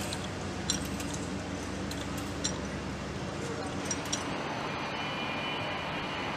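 Steady industrial hall noise with a low hum, broken by several sharp metallic clinks from hoist chains and hand tools: about a second in, around two and a half seconds in, and a pair near four seconds.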